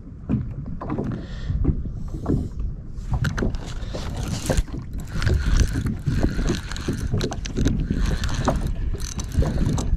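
Spinning reel being cranked to bring in a hooked fish: a dense whirring and clicking that starts about three seconds in, over water sloshing and knocking against the kayak.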